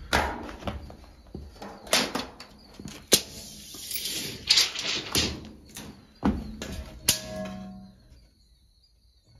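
Sharp knocks and clatter, roughly one a second, from footsteps and a steel tape measure on the wooden floor of a steel shipping container, with a hissing scrape in the middle as the tape is pulled out along the floor.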